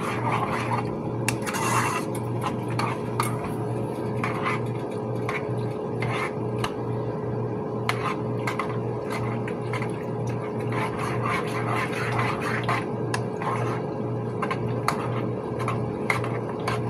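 A spoon stirring in a pot, with irregular clinks and scrapes of the utensil against the pot, over a steady low hum with a faint regular throb.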